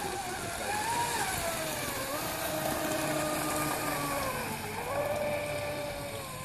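Brushless electric motor of a Graupner radio-controlled model catamaran running at speed: a high whine that falls in pitch over the first two seconds, dips lower briefly near the end, then rises again.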